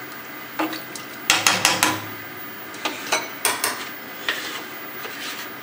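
A metal spoon clinking and tapping on cookware as spices are added to a pot of lentils: a quick run of about four sharp taps a little over a second in, then a couple more about halfway through.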